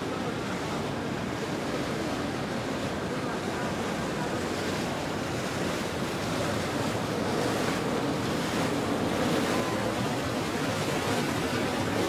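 Steady rush of wind on the microphone and water noise from a passing motor yacht's hull and bow wave, growing a little louder after about six seconds.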